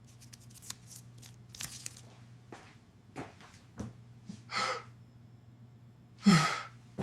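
A run of small crackles and clicks, then two louder crunches about four and a half and six and a quarter seconds in, the second the loudest.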